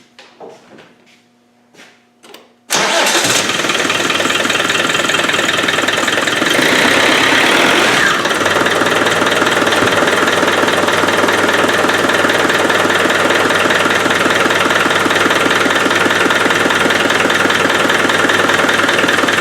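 Land Rover 300Tdi 2.5-litre four-cylinder turbodiesel catching abruptly about three seconds in after a few faint clicks, then running steadily at idle, a little louder for a moment around six to eight seconds in. This is the engine's first start after a timing cover (P) gasket replacement and coolant refill.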